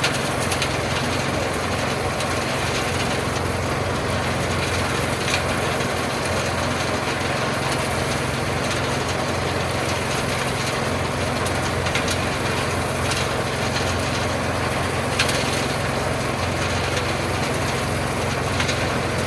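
Small engine running steadily while a gold trommel wash plant turns, with a few sharp clacks of gravel against the drum.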